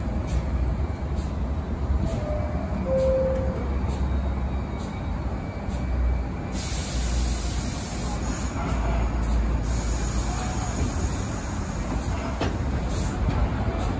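Subway train at an elevated station: a steady low rumble from the cars, with a hiss joining about halfway through.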